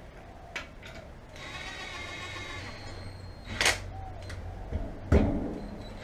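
Cordless drill with a socket and short extension whirring for about two seconds as it spins a wheel nut onto its stud, followed by a sharp click a little past the middle and a heavier knock near the end.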